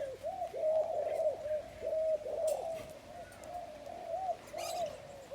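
A bird calling close by with a rapid run of short, low, arching notes, about four a second, growing fainter in the second half.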